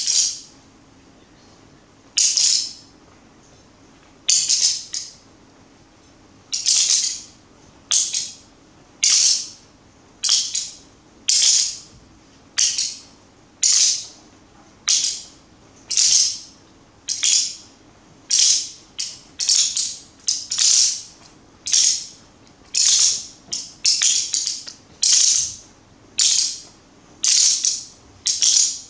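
Hand rattles shaken together in single strokes, each a short swish that fades quickly. The strokes come about once a second, spaced wider at the start and quickening toward the end.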